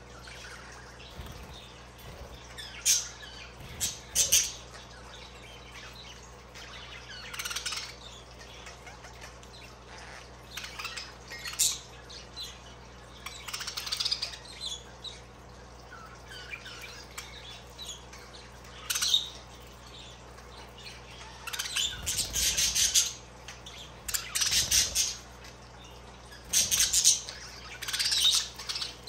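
Budgerigars chirping and squawking in short, sharp, high calls, scattered every few seconds and coming thicker near the end.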